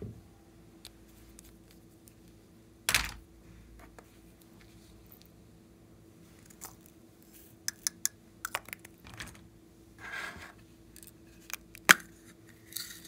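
Small plastic containers and a metal lipstick case being handled and opened over a glass dish: a sharp knock about three seconds in, a quick run of small clicks in the middle, a brief rustle, and a sharp click near the end, over a faint steady hum.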